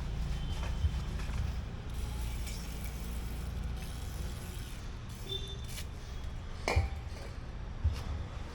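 Light clinks of small metal brake parts being handled, with a sharper knock about seven seconds in, over a steady low background rumble.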